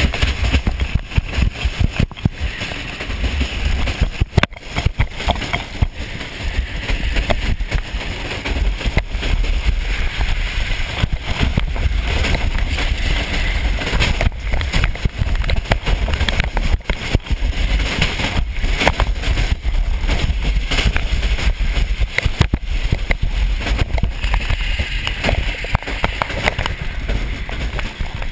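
Summer bobsled on wheels running at speed down a concrete bobsled track: a loud, continuous rumble and rattle from the sled, with many sharp knocks and jolts through the curves and wind rushing over the onboard camera.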